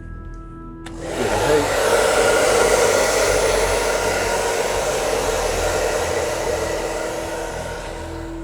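Steady rush of blown air, starting suddenly about a second in and slowly easing off toward the end.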